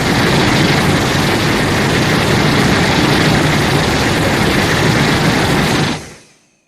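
A Showa-era Godzilla film sound effect: a loud, steady rush of noise with a deep rumble underneath and no clear pitch. It fades out quickly about six seconds in.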